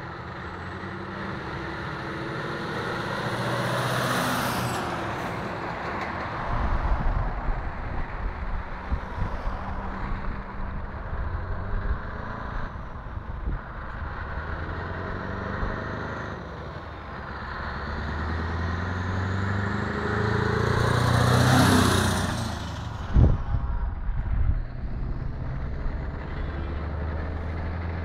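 Heavy-haulage trucks, Mercedes and Scania tractor units pulling low-loader trailers, driving past one after another, their diesel engines swelling as each one comes close: once about four seconds in and loudest about three-quarters through. A sharp short burst follows just after the loudest pass.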